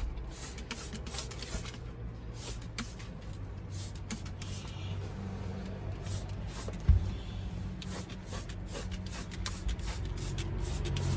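Short scuffing and rubbing strokes from hands working in a car interior, over a low steady hum, with one thump about seven seconds in.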